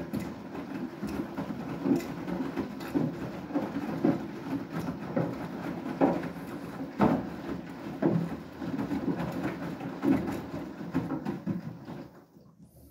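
Beko WTK104121W washing machine drum turning during its main wash: wet clothes tumble and slosh with an irregular thud about once a second. The tumbling dies away near the end as the drum stops between rotations.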